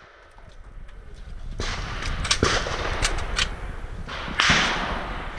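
Footsteps on dirt and the knock and rattle of gear as people move between shooting positions, with several sharp clicks. A short loud rustle comes about four and a half seconds in.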